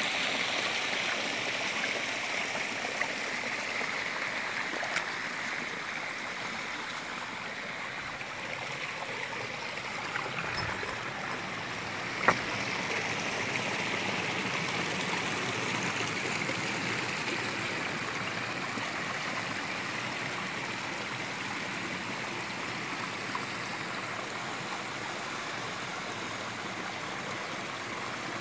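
Fresh rainwater runoff rushing and splashing down a rocky hillside channel between boulders, a steady rush of water. A single sharp click sounds about twelve seconds in.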